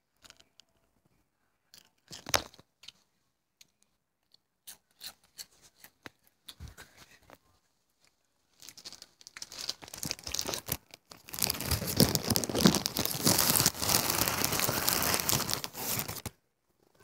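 Handling noise on a handheld camera's microphone held against the body: scattered knocks and rubs, then from about halfway through several seconds of loud, dense rustling and scraping over the microphone that stops shortly before the end.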